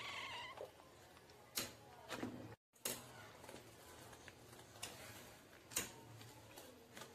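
Wire whisk beating thick cake batter in a ceramic bowl: soft scraping with a few sharp clicks of the whisk against the bowl. A short pitched cry sounds at the start, and another, falling in pitch, about two seconds in. The audio cuts out for a moment in between.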